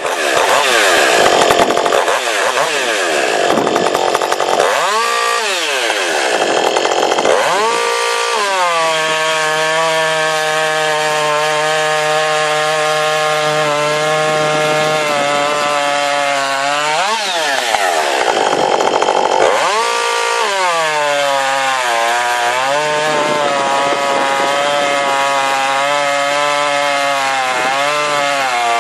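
Ported Jonsered 2260 two-stroke chainsaw engine, revved to full throttle and let back down several times. Between the revs it settles into a steady, lower-pitched run.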